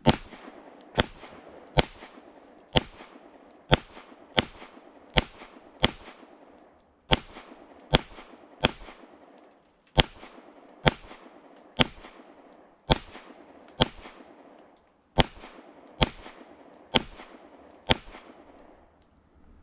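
Springfield Armory Prodigy 9mm pistol firing 115-grain FMJ: about twenty shots at an even pace of roughly one a second, each with a short echo. It fires the whole magazine without a stoppage, the sign that the extractor fault Springfield repaired is fixed.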